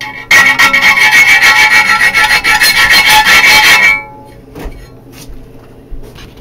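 A power tool cutting or grinding into the switch mount material, one loud rasping burst lasting about three and a half seconds with a steady whine through it, then stopping.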